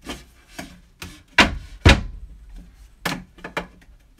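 A tightly fitted wooden board knocked by hand to nudge it into position: about seven sharp knocks, the two loudest about a second and a half and two seconds in.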